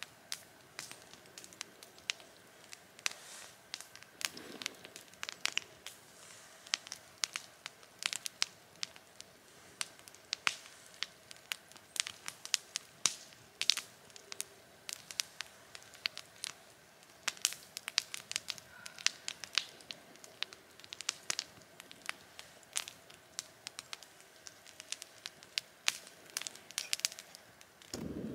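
Wood fire crackling, with irregular sharp pops and snaps a few times a second.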